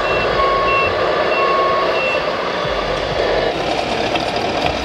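Electronic reversing beeper of an RC scale model truck's sound module, beeping about once a second and stopping about two seconds in, over steady background noise.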